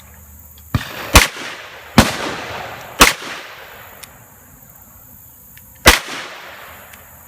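Pistol gunshots at an outdoor range: five single shots at uneven intervals, the first one fainter, each trailing off in echo.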